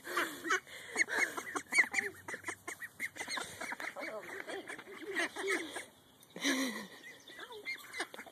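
A small flock of domestic ducks calling over and over in short, rapid quacks, several calls a second, with a brief lull about six seconds in. The ducks are crowding round a person, taken by their owner to be hungry.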